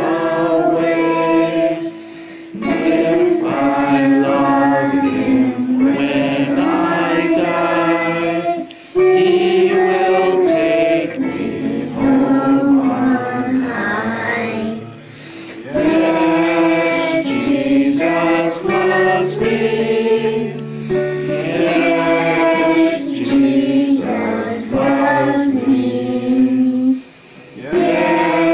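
A group of people singing a hymn together, phrase after phrase with short pauses between them.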